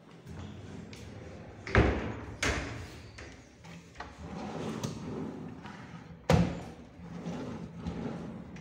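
Drawers of a built-in wardrobe being pulled open and pushed shut by hand, sliding on their runners, with sharp knocks as they reach their stops. The two loudest knocks come about two seconds in and about six seconds in.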